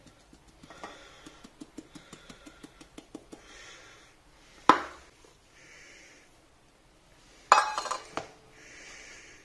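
Stainless-steel mixing bowls and a wire whisk clinking: a run of light, quick taps, one sharp metallic clank about halfway, and a short rattling clatter near the end as flour is added and whisking begins.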